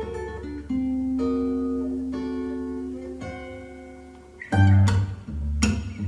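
A song played back through a portable Bluetooth speaker for an audio test: plucked guitar notes ring out and slowly fade, then about four and a half seconds in a deep bass line and drums come in.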